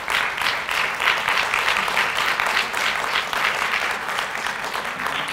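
Audience applauding, a steady crowd of clapping hands.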